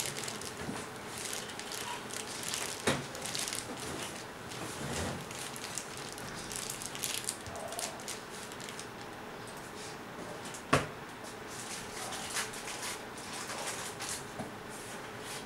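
Thin plastic bag crinkling and wet crepe paper squelching as the soaked paper is wrung out by hand, with scattered small crackles and two sharp clicks, the louder one about two-thirds of the way in.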